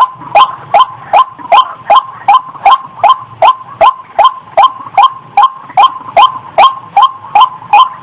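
White-breasted waterhen (ruak-ruak) calling: a fast, evenly repeated series of harsh notes, about two and a half a second, each dropping in pitch. This is the call used as a lure to draw the bird in.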